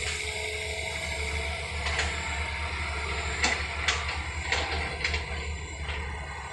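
Caterpillar hydraulic excavators digging wet mud: a low, steady diesel engine drone, with a handful of sharp clanks from about two seconds in.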